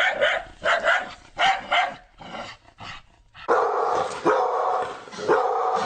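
A dog barking repeatedly in short barks, a little under one a second. About halfway through, a steady layered background sets in under the continuing barks.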